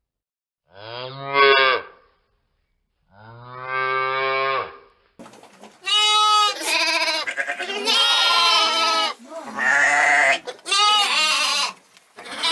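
A cow mooing twice, two long low calls in the first five seconds. Then, from about five seconds in, a run of higher-pitched bleats from several animals, some overlapping.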